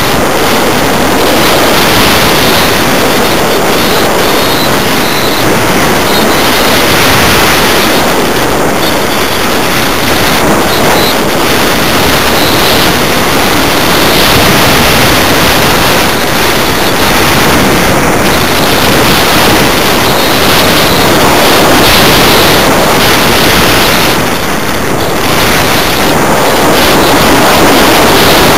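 Loud, steady rush of wind over the onboard camera's microphone as a model glider flies, with no engine heard.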